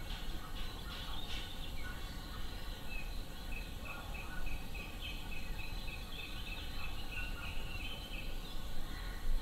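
Outdoor forest ambience with a steady low rumble. A bird repeats a short high note two or three times a second for about five seconds, starting a few seconds in.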